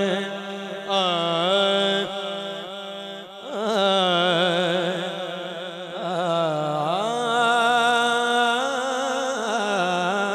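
A young man singing a naat into a microphone, drawing out long, ornamented phrases with a wavering vibrato. The voice drops away briefly twice, between phrases.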